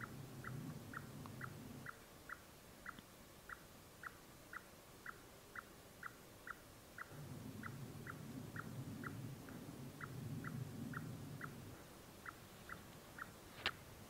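An animal's repeated call: short, high chip notes, each dropping slightly in pitch, evenly spaced about two a second. A faint low rumble comes and goes beneath it, and a single sharp click sounds near the end.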